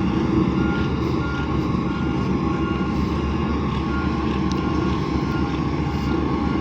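Heavy construction machine's diesel engine running steadily, with a reversing alarm beeping about once a second.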